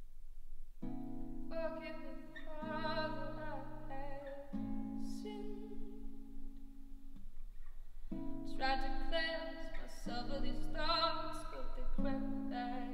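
A woman singing over hand-strummed acoustic guitar chords. The music starts just under a second in and eases off briefly about seven seconds in before the guitar and voice come back.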